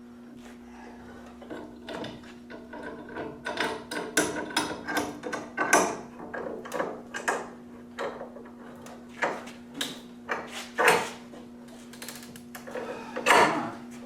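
Clamps being handled and tightened on a glued-up tongue-and-groove wood panel: a run of irregular clicks, knocks and clanks, the loudest ones about six, eleven and thirteen seconds in. A steady low hum runs underneath.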